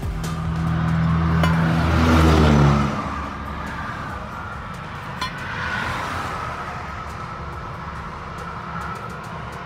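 Heavy diesel semi-truck engine, a Cummins ISX15 in a Kenworth W900, pulling under load with its pitch rising. About three seconds in it falls away sharply, leaving a steadier engine and road noise.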